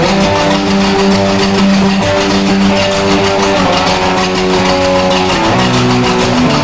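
Background music led by guitar, with held chords that change every second or so over a steady beat.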